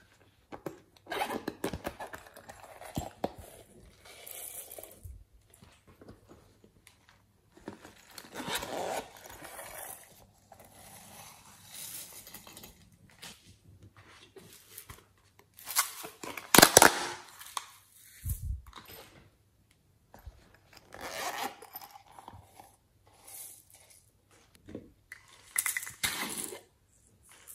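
Hands handling and opening novelty-shaped plastic containers, with irregular bursts of scraping, rustling and clicking. The loudest cluster of sharp strokes comes a little past halfway, followed by a short low thump.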